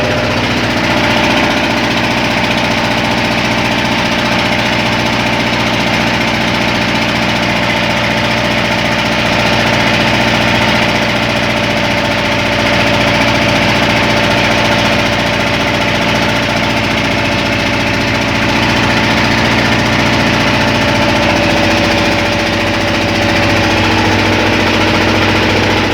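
Boat engine running steadily at a constant note, its pitch shifting slightly about three-quarters of the way through.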